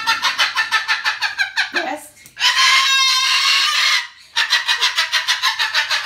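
Cockatoo calling: a rapid run of short, high calls, about nine a second, then a long harsh screech from about two and a half to four seconds in, then another rapid run of short calls.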